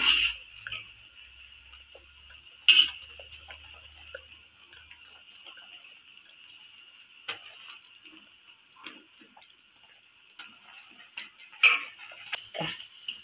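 Water boiling in a wok around a block of instant noodles, with a steady hiss and soft ticking of bubbles. A metal ladle knocks sharply against the wok at the start, about three seconds in, and twice near the end as the noodles are turned.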